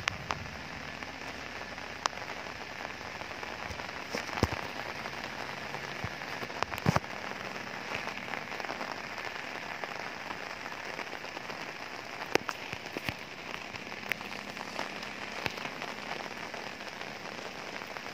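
Steady rain falling on the ground and platform, an even hiss with a few sharp taps now and then.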